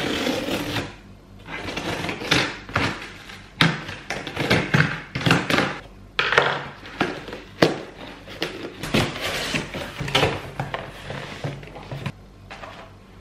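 A cardboard shipping box being opened by hand. Scissors slit the packing tape and the flaps are pulled back, making an irregular run of scraping, tearing and rustling noises with a few sharp knocks.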